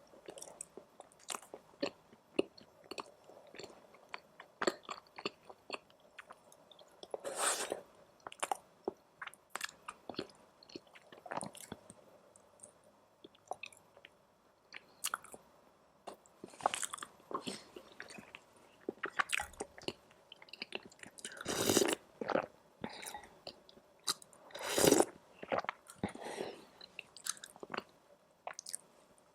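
Close-miked eating: chewing and biting with many small wet mouth clicks and smacks, and a few louder, longer mouth sounds about 7 seconds in and twice between 21 and 25 seconds in.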